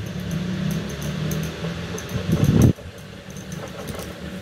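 A low, wavering mechanical hum with a few faint clicks. It swells and then cuts off suddenly a little past halfway through.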